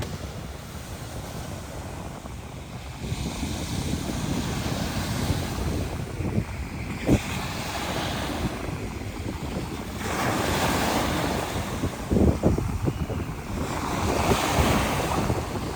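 Sea waves washing in, in swells every few seconds, with wind buffeting the microphone and a few short thumps from gusts.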